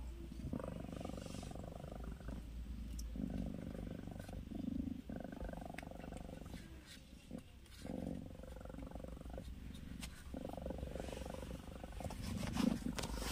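Mother cat purring while she tends her newborn kitten, in stretches of one to two seconds with short breaks between them as she breathes.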